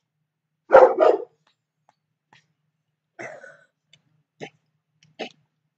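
A dog barks twice in quick succession about a second in, then a few fainter short sounds follow.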